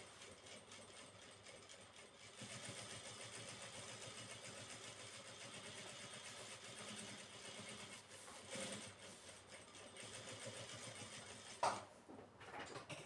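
Sewing machine running steadily as it stitches curtain fabric, stopping near the end with a sharp click.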